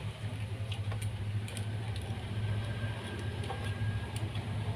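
Faint clicks and rustles of wires and a circuit board being handled, over a steady low hum.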